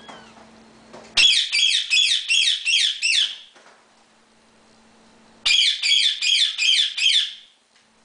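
Indian ringneck parakeet screeching in two loud bursts of rapid calls, each about two seconds long with some seven notes that each fall in pitch; the second burst comes a couple of seconds after the first.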